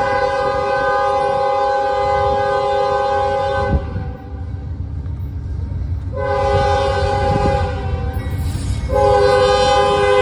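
Norfolk Southern freight locomotive's air horn sounding a chord in three blasts: a long one that stops about four seconds in, a shorter one about six seconds in, and another long one starting about nine seconds in. A low rumble of the approaching train runs underneath.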